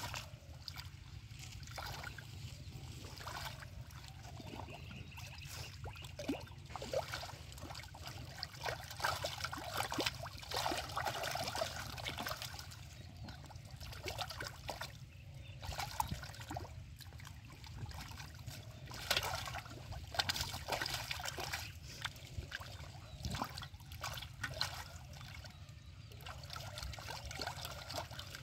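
Hands splashing and sloshing in shallow muddy water, groping through the mud in short irregular splashes and trickles, busier in places, over a steady low hum.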